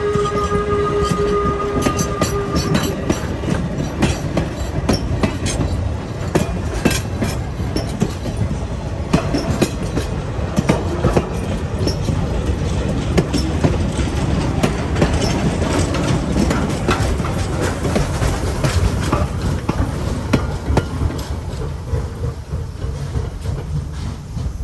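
Passing excursion train hauled by a replica 4-4-0 steam locomotive: the whistle's steady tone trails off in the first few seconds, then wheels rumble and click rapidly over the rail joints as the cars roll by, easing off near the end.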